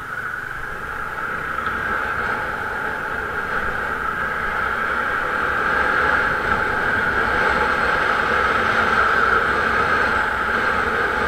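Steady wind and road noise of a moving ride, picked up by a vehicle-mounted action camera, slowly growing louder as the ride gathers speed.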